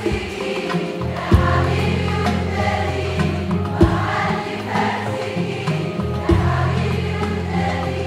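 Concert audience singing an Arabic tarab song together in chorus over a live orchestra. A sustained bass line runs under the singing, with a sharp drum hit about every two and a half seconds.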